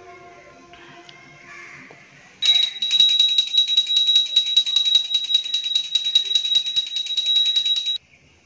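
Puja hand bell rung rapidly and steadily for about five seconds, a single high ringing tone made of fast, even strikes. It starts a couple of seconds in and stops abruptly.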